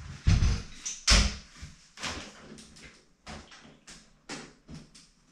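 Knocks and clicks of a Burley Travoy bike trailer's arm being hitched onto a Brompton folding bicycle's seatpost. Two heavy clunks in the first second or so, then lighter clicks and taps as the hitch is seated.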